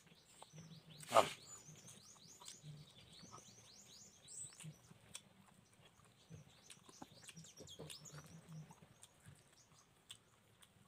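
Small birds chirping rapidly, with many short high chirps throughout. A single sharp smack about a second in is the loudest sound, and there are faint eating noises from hand-eating rice and meat.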